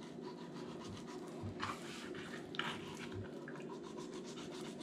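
A kitchen knife working between the skin and flesh of a snakehead fillet on a plastic cutting board: a few short, soft scraping and sliding sounds over a steady low hum.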